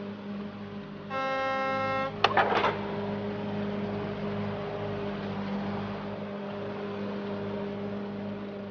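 Steady engine hum of a toy excavator driving. One horn beep about a second long comes about a second in, followed by a brief clatter of clicks.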